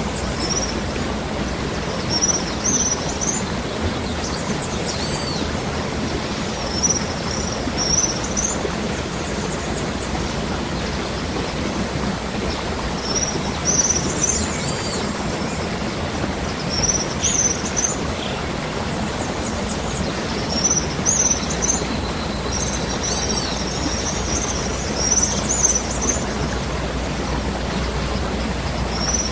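Waterfall rushing in a steady, even roar of falling water, with small birds chirping in short high bursts every few seconds.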